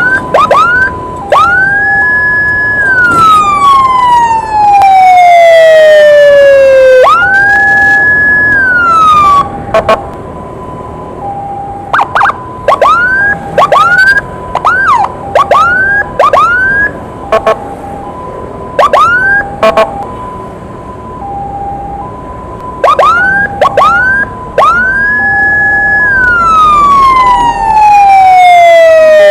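Emergency sirens from an ambulance escort: a steady two-tone hi-lo alternation runs throughout, overlaid by a second siren that three times rises, holds high and slowly falls, with quick rising chirps between the long sweeps.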